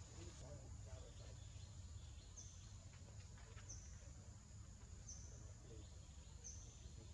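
Faint outdoor ambience: a steady high insect whine, with a bird repeating a short high chirp four times, about every second and a half, over a low rumble.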